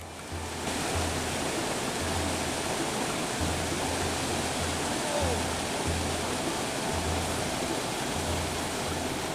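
Steady rushing of river water, a full hiss that swells up about half a second in, with the low bass notes of background music under it.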